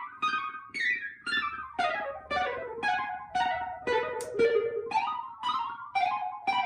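Moog Subharmonicon analog synthesizer playing a sequenced pattern of short, plucky notes that die away quickly, about two notes a second, stepping through a repeating run of pitches.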